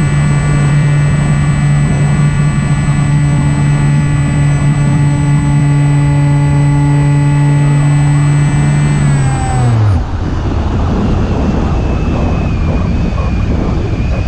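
Electric motor and propeller of an Opterra flying wing running at a steady pitch with a thin high whine over it. About nine and a half seconds in the throttle is cut and the pitch falls away, leaving wind rushing past as the wing glides unpowered.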